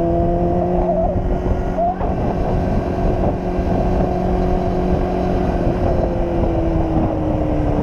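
Motorcycle engine running at a steady cruise, with wind rushing over the microphone; the engine note eases slightly lower near the end.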